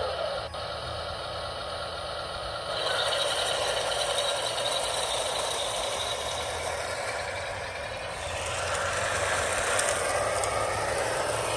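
1/12-scale diecast crawler tractor model converted to electric RC, driving on concrete: its small electric drive motors and gearboxes run steadily while the tracks clatter. The sound changes about three seconds in and again around eight seconds.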